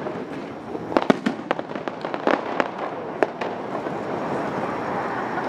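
Aerial firework shells bursting overhead: a quick run of sharp bangs and crackles between about one and three and a half seconds in, over a steady background noise.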